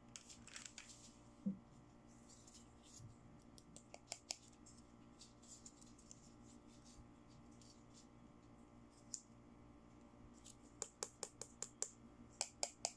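Light plastic clicks and taps from handling a pink plastic flower-shaped toy mirror, with a soft knock early on and a quick run of clicks near the end.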